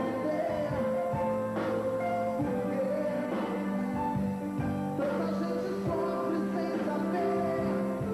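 Live pop-rock band music with held notes and chords, and a voice singing over it.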